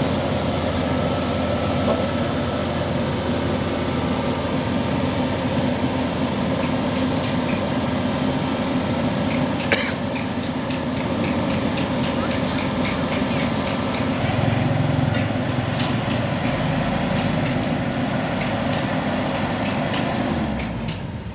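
Engine of heavy machinery running steadily at constant speed, with a single sharp knock about ten seconds in. The engine sound drops away just before the end.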